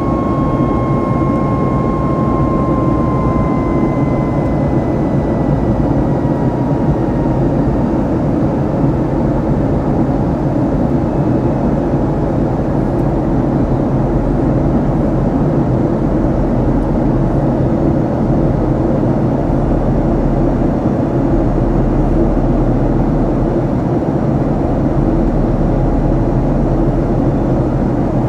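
Cabin noise of a Boeing 737 MAX in flight: the steady, loud rush of its CFM LEAP-1B jet engines and the airflow. For the first several seconds a thin high whine slowly drops in pitch and fades out.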